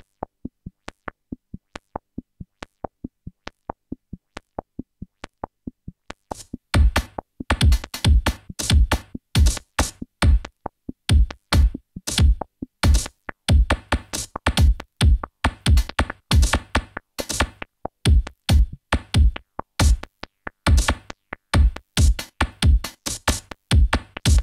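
Eurorack modular synthesizer music, percussive and without melody. It opens with a steady pattern of short, thin clicks, about three a second. About six seconds in, a louder pattern of deep, bass-heavy drum-machine-like hits comes in and takes over, in an uneven rhythm.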